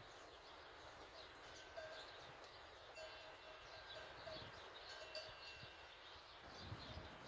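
Near silence: a faint outdoor background with scattered short high chirps and brief repeated tones.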